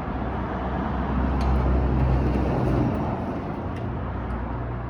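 Low, steady rumble of a motor vehicle, swelling about a second in and fading toward the end, with a few faint small clicks.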